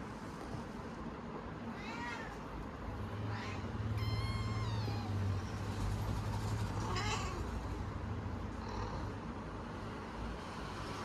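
Kittens meowing, about five separate meows, the longest and clearest about four seconds in with a falling pitch. A low hum sits underneath through the middle.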